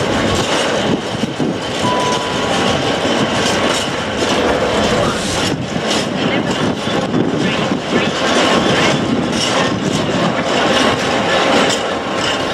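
Empty flat wagons rolling past at low speed, wheels clicking and knocking over rail joints with a steady rattling rumble, while a Class 66 diesel locomotive's engine comes in as it draws near towards the end.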